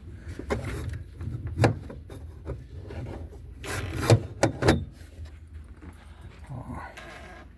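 A series of knocks, bumps and clatters over a low rumble. The sharpest knock comes about a second and a half in, and a tight cluster of them comes around four to five seconds in.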